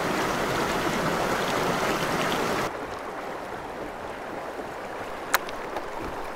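Shallow stream flowing over rocks, a steady rush that is louder for the first two and a half seconds and then drops suddenly to a quieter level. A single sharp click comes about five seconds in.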